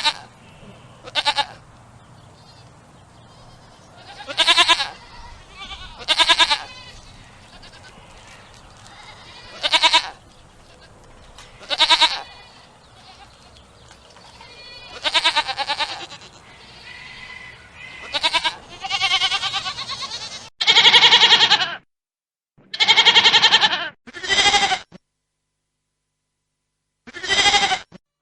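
Goats bleating: about a dozen separate calls, each a second or so long with a wavering pitch, a few seconds apart. Over the first two-thirds there is a faint steady background hiss. After that the calls are louder and longer, with silence between them.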